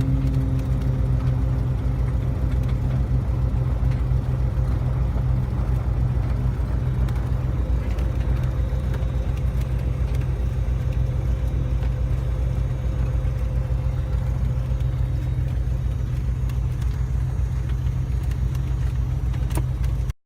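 Cessna 207's single six-cylinder piston engine and propeller running steadily at low power, heard from inside the cabin after landing; a steady low hum with faint tones, stopping abruptly at the very end.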